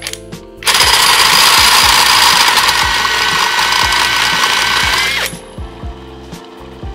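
Cordless impact driver running at full speed, spinning a car alternator by its pulley shaft, for about four and a half seconds starting near the first second, then winding down with a falling pitch when the trigger is released. Background music with a steady beat underneath.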